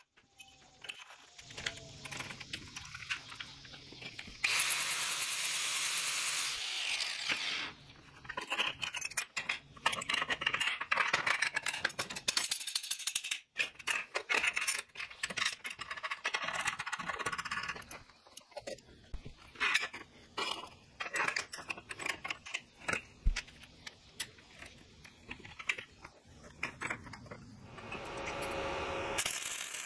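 Steel parts clinking, knocking and rattling on a steel welding table top as a bolt, washers and a nut are fitted through a square-tube leg and gusset plate and clamps are set. About four seconds in there is a few-second stretch of steady noise.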